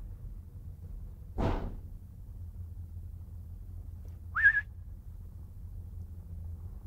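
A short whistle about four seconds in, rising and then wavering on one note, over a low steady rumble. A brief whoosh comes a little more than a second in.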